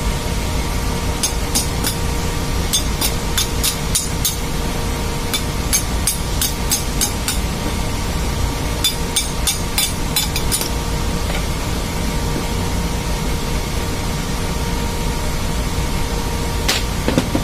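Steady drone of ship's machinery with a constant hum, over which come clusters of short, sharp metal clicks and taps from tools being worked on a bearing puller clamped to an electric motor's rotor shaft. The clicks come in runs, from about one to four seconds in and again from about five to ten seconds, with a few more near the end.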